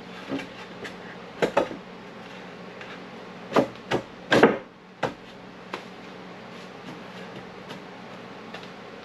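Wooden boards knocking against each other and the cart as they are laid and shifted on a wheeled cart: about half a dozen sharp clunks in the first half, the loudest about four seconds in. A steady low hum continues underneath.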